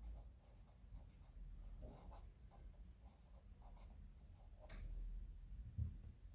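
Felt-tip pen writing a word on lined notebook paper: faint, scattered scratching strokes of the tip on the page, with a soft low bump near the end.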